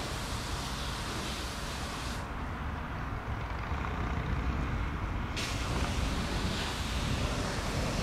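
Jet engines of an Airbus A319 landing and braking: a steady rushing noise over a low rumble.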